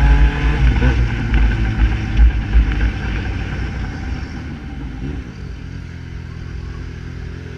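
Yamaha XJ6's 600 cc inline-four through an Atalla 4x1 aftermarket exhaust, coming off throttle after a rising rev. Irregular low bangs in the exhaust over the first few seconds, then the engine settles to a steady idle.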